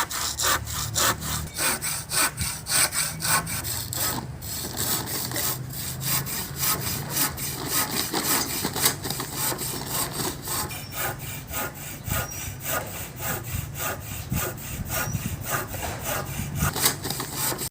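Hand saw cutting through wood in quick, even back-and-forth strokes, several a second, with a couple of brief pauses.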